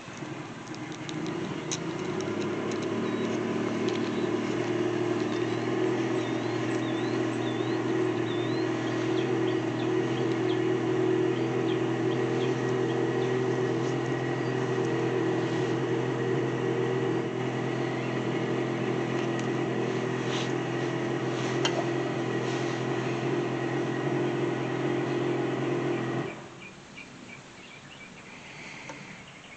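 A machine runs with a steady hum for about 26 seconds, then stops abruptly. Birds chirp faintly in the background.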